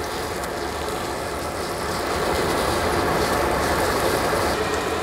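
Pork sausage patty sizzling steadily in hot oil in a non-stick skillet, just turned over with a silicone spatula; the sizzle grows a little louder after about two seconds.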